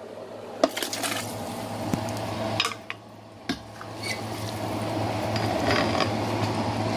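A glass jug and a spatula clinking and knocking a few times against a metal cooking pot, then a thick leafy soup being stirred in the pot, a steady wet stirring noise from about four seconds in.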